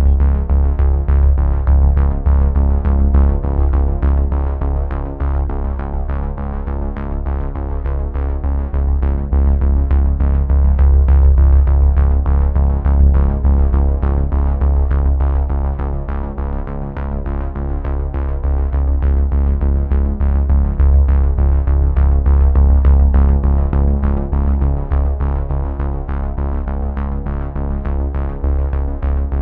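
Electronic background music: synthesizer chords over a deep bass, with a steady beat.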